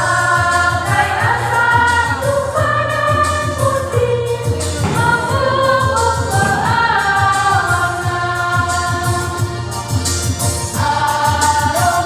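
Church youth choir singing a Catholic hymn in Indonesian, the voices holding long chords with slow changes of pitch.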